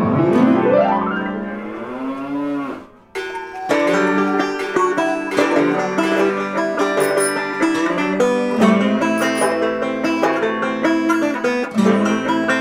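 A pitched sound effect that glides and wavers in pitch for about three seconds. Then upbeat background music with plucked banjo starts.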